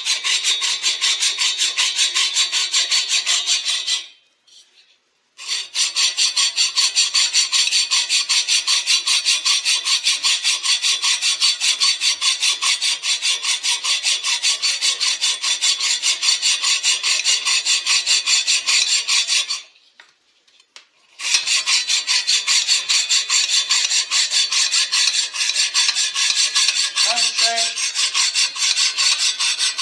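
A saw blade cutting through a Husqvarna 1100 chainsaw's aluminium cylinder to take the top off, with fast, even rasping strokes. The cutting stops briefly twice, about four seconds in and again about twenty seconds in.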